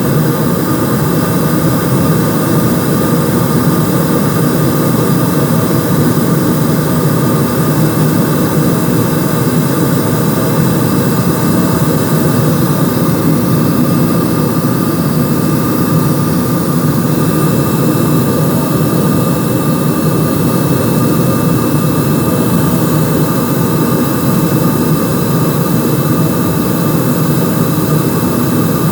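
Aircraft cabin noise in flight: the steady drone of the engines and the airflow past the fuselage, heard from inside the cabin, with a few faint steady tones over it.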